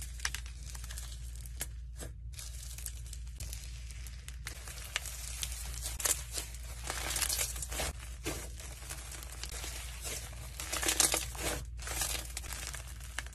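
Fluffy, crunchy textured slime being pulled apart, stretched and squeezed by hand, giving a dense crackling, tearing sound. The crackle swells into louder stretches about halfway through and again near the end.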